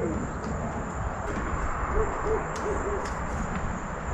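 Owls hooting: a row of short, low hoots in quick succession, about one and two to three seconds in.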